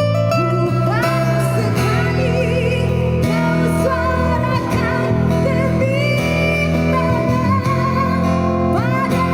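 Live busker band music: a singer holding long notes with vibrato over guitar and bass accompaniment.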